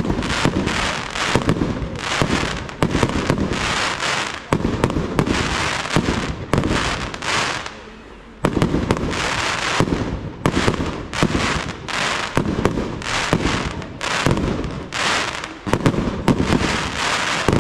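Aerial fireworks display: shells launching and bursting in rapid succession, a dense run of bangs and cracks, with a short lull about eight seconds in before the firing picks up again.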